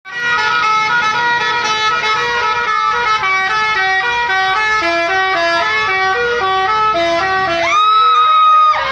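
A tour bus's 'telolet' multi-tone musical air horn playing a quick tune of stepped notes, several tones sounding at once. Just before the end it finishes on one long held chord that slides up as it starts, then cuts off.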